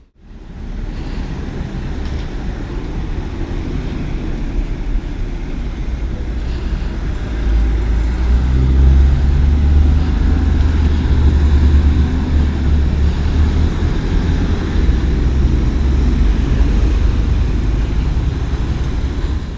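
Steady low rumble of a moving vehicle, heard from on board, growing louder about seven or eight seconds in.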